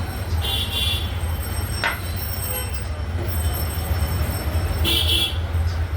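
Restaurant background noise: a steady low hum, with a short high-pitched sound about half a second in and again about five seconds in, and a light tap about two seconds in.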